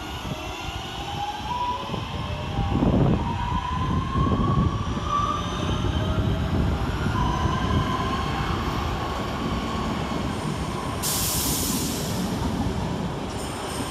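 Two coupled Class 323 electric multiple units pulling away from the platform. Their traction motors whine, rising in pitch as the train accelerates, over a steady rail rumble, with a short hiss about eleven seconds in.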